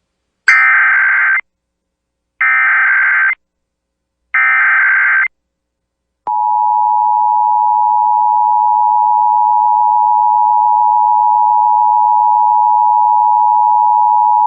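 Emergency Alert System SAME header: three loud bursts of warbling data tones, each about a second long and about two seconds apart. About six seconds in, the steady two-tone EAS attention signal starts and holds for over eight seconds, announcing a required monthly test.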